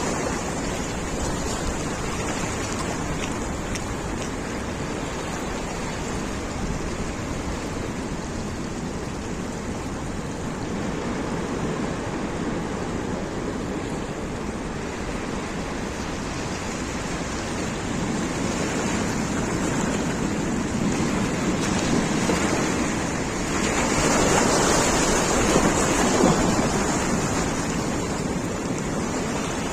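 Sea waves surging and washing on a rocky shore, mixed with wind noise on the microphone. A bigger surge swells louder toward the end.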